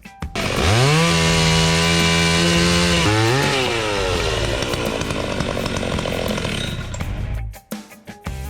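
Husqvarna 61 two-stroke chainsaw revving up about half a second in and holding at high revs. It dips and revs again just after 3 s, then runs rougher as it cuts through small rotten cedar logs, and stops near the end.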